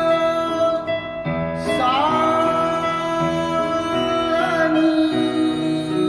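A woman singing the sargam syllables of the E major scale in long held notes, sliding up into the second note about two seconds in, over a Casio electronic keyboard playing the scale notes with sustained chords (E major moving to B major).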